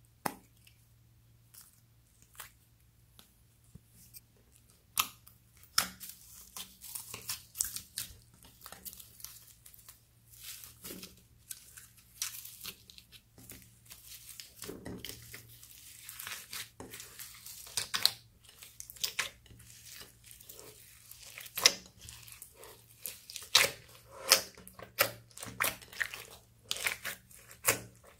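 Hands kneading and squishing clear slime packed with foam beads: irregular crunchy crackles, clicks and sticky pops. It starts sparse, with a single click just after the start, and grows dense after about five seconds.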